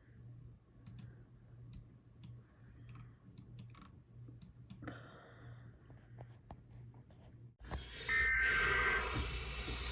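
Scattered clicks and key taps on a computer mouse and keyboard, a few to the second, over a faint steady hum. Near the end a louder hiss cuts in suddenly, with a short high tone in it.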